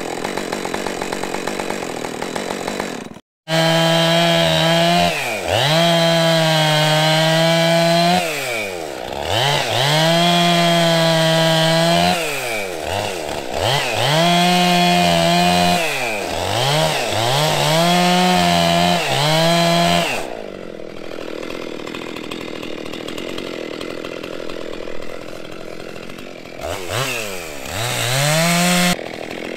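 Gas chainsaw engine repeatedly revving up to full speed, holding, and dropping back, again and again. It then falls to a lower, quieter running speed before one more burst of revs near the end.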